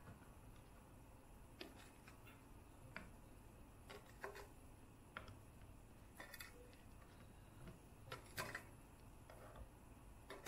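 Light, scattered taps and clicks as baked madeleines are picked up and set down on a wooden cutting board, about a dozen over a very quiet background.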